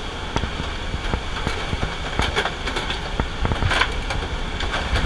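Steady aircraft drone and wind noise inside a skydiving jump plane's cabin, with scattered knocks and rustling of harnesses and gear as jumpers shuffle along the bench.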